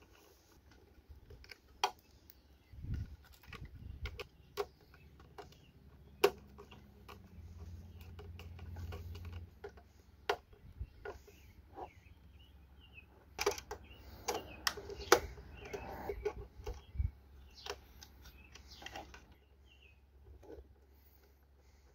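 Scattered small metallic clicks and taps of a screwdriver and cable ring terminals on the screw terminals of an alternator charger as the main power cable is fastened, busiest a little past the middle.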